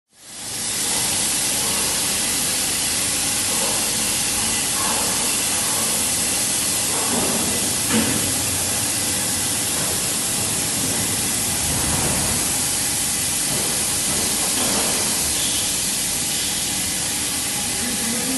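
Steady loud hiss of the coolant spray nozzle on a CNC diamond-cut wheel lathe as its tool turns an aluminium rim, with one small tick about eight seconds in.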